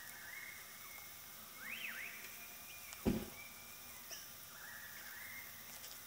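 Birds calling in the background: short whistled notes and one quick rising-and-falling call. A single low thump about three seconds in is the loudest sound.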